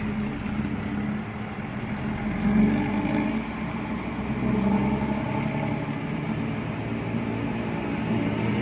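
Bus engine running as the bus pulls away, its pitch rising and falling a few times, heard through a 'knalpot ngorok' (snoring) modified exhaust that gives it a low, growling note.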